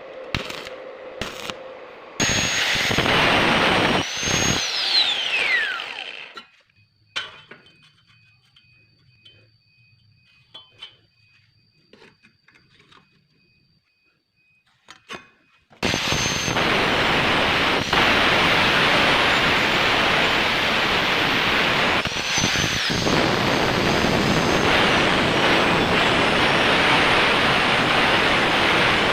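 A power tool with an abrasive disc grinding or cutting steel. It runs loud for a few seconds and winds down with a falling whine about five seconds in. After a quiet spell with a few light clicks and taps, it starts again about sixteen seconds in and grinds steadily through the end.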